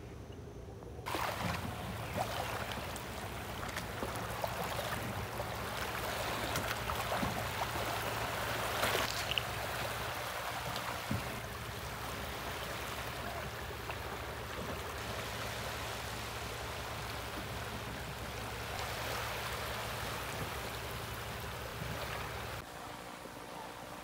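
Steady rush of running water, starting abruptly about a second in and cutting off near the end.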